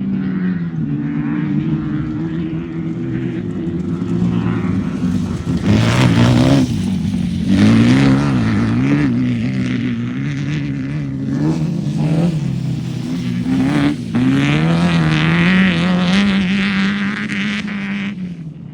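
Off-road race vehicle engine running hard, its pitch rising and falling as it revs, with several louder surges.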